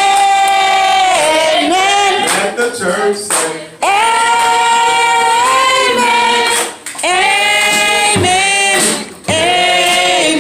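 A high-pitched voice holding long, steady, sung-like notes, four in a row with short breaks between them.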